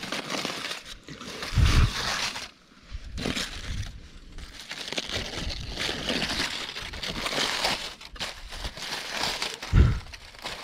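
Aluminium foil crinkling as it is peeled open by hand from fish roasted in it over a fire. There are two dull thumps, about two seconds in and near the end.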